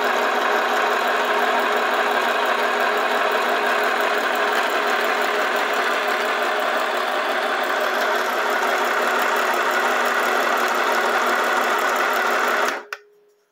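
Philco PMC16 home sewing machine's small electric motor and mechanism running steadily, then cutting off abruptly near the end.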